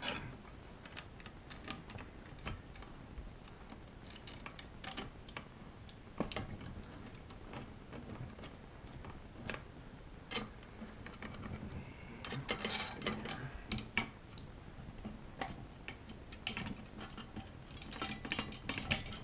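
Long screws being turned in by hand with a screwdriver through the metal backing plate of a Kaba Simplex 1000 pushbutton lock: irregular light metallic clicks and ticks, with denser runs of clicking about two-thirds of the way through and again near the end.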